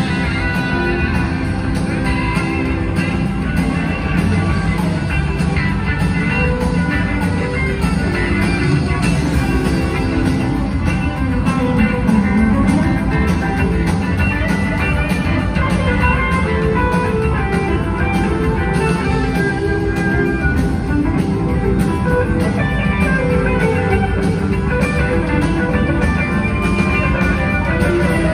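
Live rock band playing, electric guitars to the fore over drums and keyboard, heard steadily throughout.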